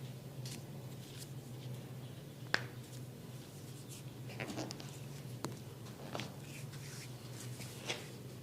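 Hands massaging a head: soft rubbing and scratching over a steady low hum, broken by a few sharp clicks, the loudest about two and a half seconds in.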